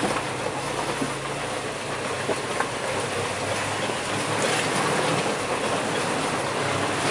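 Off-road 4x4 crawling over a rutted, stony mud track, heard from inside the cab: a steady engine drone under constant rattling and knocking of the body and suspension over the rocks.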